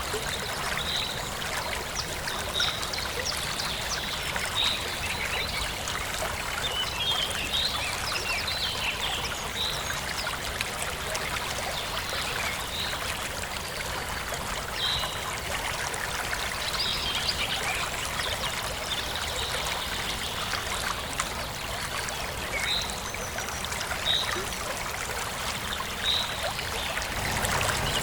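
Steady trickling water with short, high chirps every second or two.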